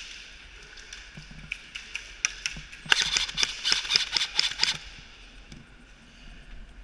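Airsoft gunfire: a few scattered sharp cracks, then a quick string of them at about seven a second for nearly two seconds, from about three seconds in.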